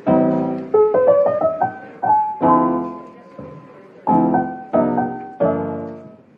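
Background piano music: chords struck every second or two, each dying away, with short melody notes in between.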